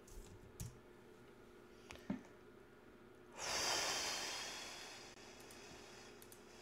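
A long, hissing breath out close to the microphone: it starts sharply about halfway through and fades over about two seconds. Two faint clicks come before it.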